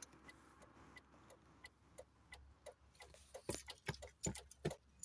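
Faint, irregular clicks and light knocks, becoming louder and more frequent over the last second and a half.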